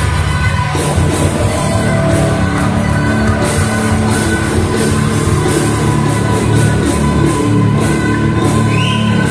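Live rock band playing loudly: electric guitars over drums, with regular cymbal and snare hits.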